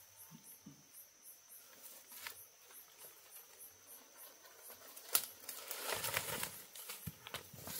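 Insects chirring in a steady high-pitched pulse, about three pulses a second. A sharp click comes about five seconds in, followed by a couple of seconds of rustling and knocks.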